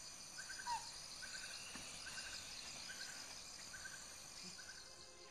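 Faint tropical forest ambience: a steady high insect buzz, a short trilled call repeating about once a second, and a single brief falling bird chirp about a second in.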